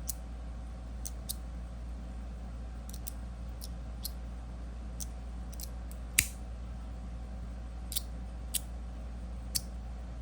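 Stainless steel magnetic fidget slider clicking as its plates snap between magnet positions: a dozen or so sharp, irregularly spaced metallic clicks, one louder than the rest about six seconds in.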